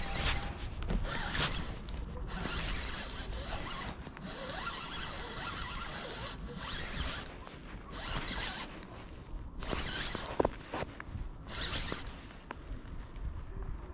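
Daiwa Fuego 3000D-C spinning reel cranked in spurts as a lure is retrieved: a whirring rasp of the reel turning, in spells of one to two seconds with short pauses between.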